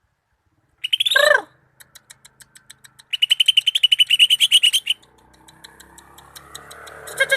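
Greater green leafbird (cucak ijo) singing: a quick falling call about a second in, then a fast, rapidly repeated high trill lasting about two seconds, and another fast trill starting near the end.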